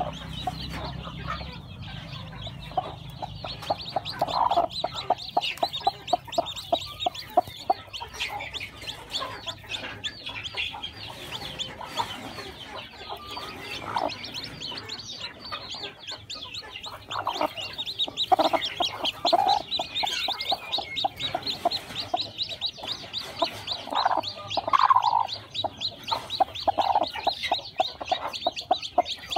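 Broody hen clucking in repeated bursts while sitting on her eggs and newly hatched chicks, with a steady high, rapid chirping throughout.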